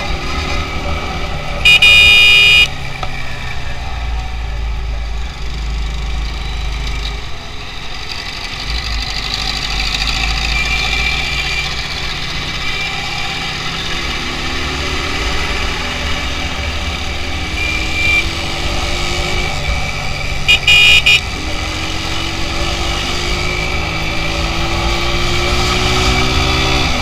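Motorcycle engine and wind noise while riding in traffic, the engine pitch rising repeatedly as it accelerates. A vehicle horn blares for about a second near the start and again in short toots about two-thirds of the way through; these are the loudest sounds.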